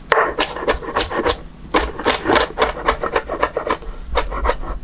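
Cleaver chopping fresh leaves on a wooden cutting board: a quick, steady run of chops, several a second.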